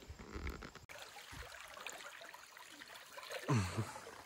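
Shallow river water trickling and lapping around a wading angler, with a brief, loud, voice-like sound falling in pitch about three and a half seconds in.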